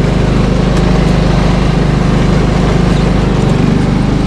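Snowblower's small engine running steadily with an even, rapid chug.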